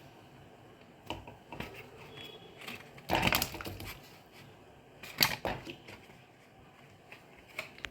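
Irregular knocks and clatter of kitchen utensils and cookware being handled, loudest in a rattling burst about three seconds in and a sharp knock about five seconds in.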